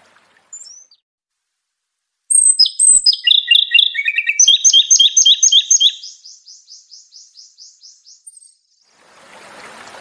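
Japanese robin singing: a short note, then a loud song of high clear notes stepping down in pitch that runs into a rapid trill of about five notes a second, fading out.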